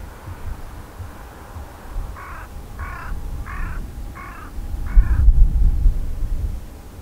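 A crow cawing five times in a quick even series, about half a second apart, starting about two seconds in. Just after the last caw a loud low rumble rises and fades over a second or so.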